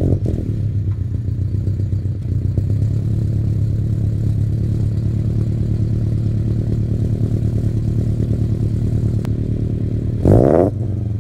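Scion FR-S / Subaru BRZ with a Borla cat-back exhaust, its 2.0-litre flat-four idling steadily with a deep, even exhaust note. About ten seconds in it gives a brief rev.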